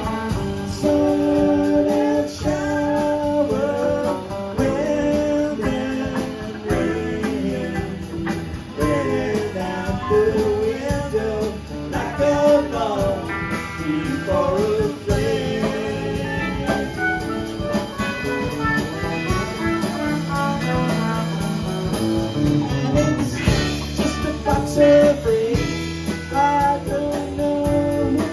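Live rock band playing: electric guitars, keyboards, bass and drums, with sliding melodic lines over the steady groove.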